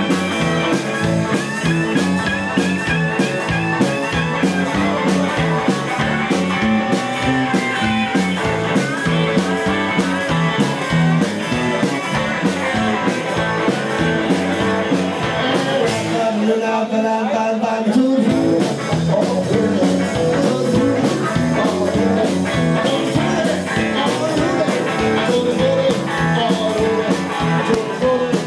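Live blues-rock band playing with electric guitars, bass guitar and drums, at a steady beat. A little past the middle, the bass end drops out for about two seconds before the full band comes back in.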